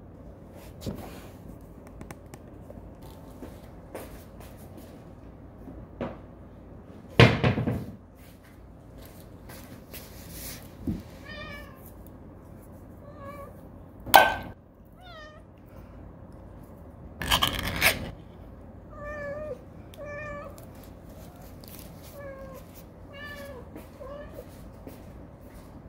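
Domestic cats meowing repeatedly in short calls, in clusters through the second half, waiting to be fed. Three loud brief handling noises stand out, about seven, fourteen and seventeen seconds in.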